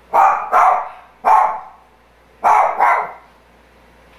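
Dog barking: five barks in three bunches, a quick pair, a single, then another quick pair.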